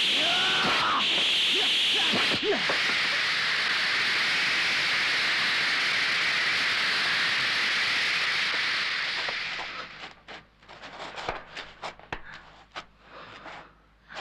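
Horror-film sound effects: a loud, steady hissing noise with shrill, wavering cries over it in the first two or three seconds. The hiss fades out after about nine and a half seconds, leaving a few faint knocks and clicks.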